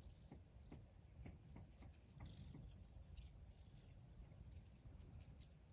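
Near silence: faint outdoor background with a steady thin high tone, a low rumble and a few faint clicks.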